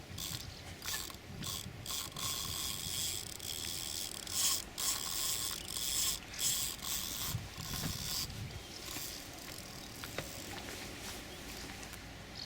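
Fishing reel's clutch ratcheting in uneven bursts as a hooked fish pulls line off the spool. It eases off after about nine seconds.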